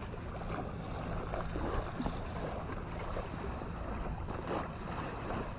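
Wind buffeting the microphone as a steady low rumble, with outdoor background noise and no distinct events.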